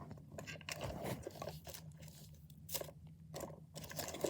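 Fidget toys being handled: irregular crinkling, crunching and rustling of plastic.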